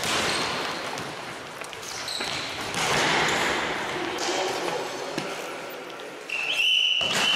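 Indoor futsal play echoing in a sports hall: players' shouts, ball kicks and bounces, and shoes squeaking briefly on the wooden floor. Near the end a loud high-pitched squeal holds for over a second.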